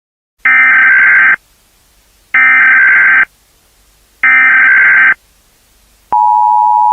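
Emergency Alert System SAME header: three one-second bursts of screeching digital data tones, a second apart. About six seconds in, the steady two-tone EAS attention signal begins.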